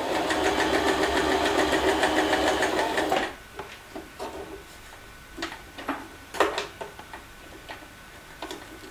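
W6 Wertarbeit N1615 domestic sewing machine running steadily, stitching a zigzag seam, then stopping about three seconds in. Scattered light clicks follow as the fabric is handled.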